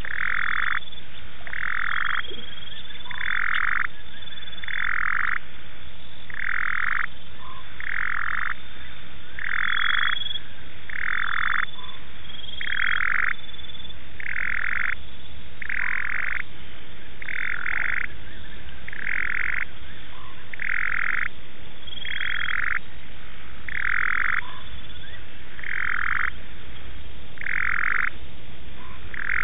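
A frog at the waterhole calling over and over, one croaking call about every second and a half, each just under a second long. Fainter high chirps from other callers sound behind it.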